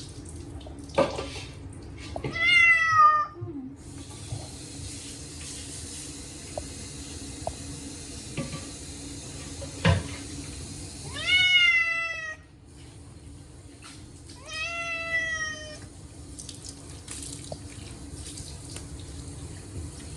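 Short-legged Munchkin cat meowing loudly three times, each call falling in pitch, in distress at being bathed. Water runs from a tap for several seconds and shuts off about twelve seconds in. A couple of sharp knocks are heard.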